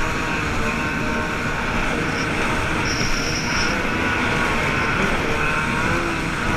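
Motorboat engine running steadily at speed, with the constant rush of water spray past the hull.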